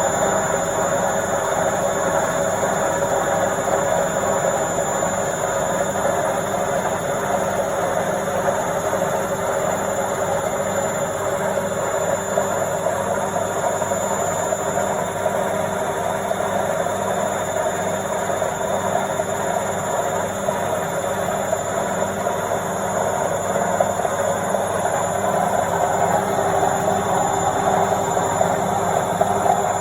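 Washing machine in its spin cycle: a steady whirring hum with a faint constant high whine, holding an even speed throughout.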